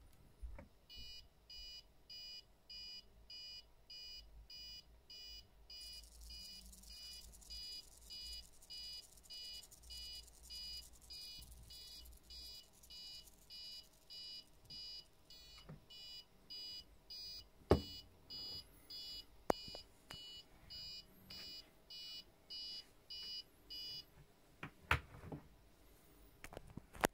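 Level crossing warning alarm played through the model crossing's small speaker: a high electronic warble pulsing about one and a half times a second, which stops near the end. A few sharp clicks sound over and after it.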